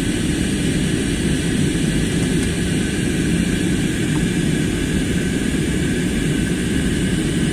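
Steady cabin noise of an Airbus A320-family jet airliner during descent: a constant low rush of engines and airflow heard from inside the cabin.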